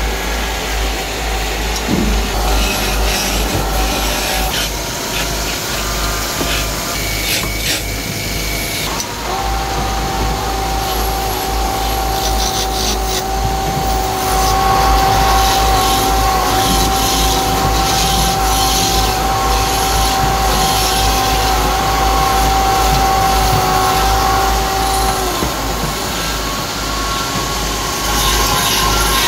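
Belt-driven wood lathe running, with a hand chisel scraping and cutting spinning wood and wood shavings flying. A steady low hum runs underneath, and a steady high whine sets in about nine seconds in and stops a few seconds before the end.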